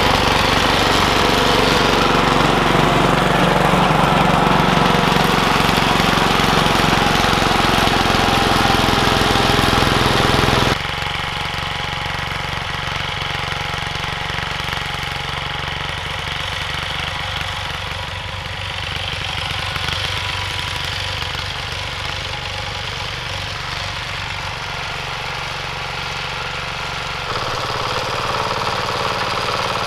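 Yanmar TC14 walk-behind tractor's single-cylinder diesel engine running steadily as the machine works the soil. About ten seconds in it drops suddenly to a quieter, more distant engine sound, which grows a little louder again near the end.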